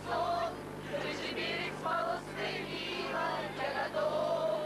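Group of teenage boys and girls singing a song together in chorus inside a coach, with a steady low hum underneath.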